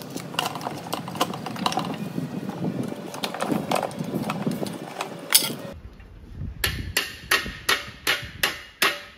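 Irregular clicks and clatter of pliers and small tools handled over wiring. Then, from about six seconds in, a hacksaw cutting a metal strip in even strokes, about three a second.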